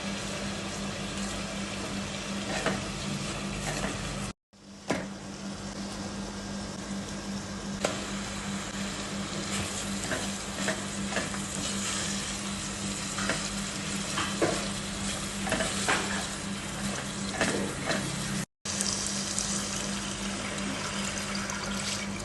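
Food sizzling in a frying pan while being stirred, with scattered clinks of a utensil against the pan over a steady low hum. The sound cuts out briefly twice.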